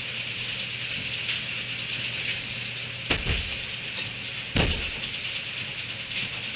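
Two sharp knocks about a second and a half apart as donkeys jostle at a metal hay feeder, over a steady high hiss and a low hum.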